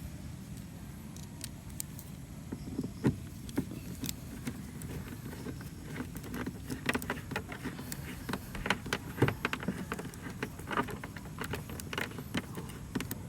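Irregular light clicks and taps of small metal bolts and a hand tool being handled while fitting bolts to a motorcycle's fairing, over a steady low background rumble.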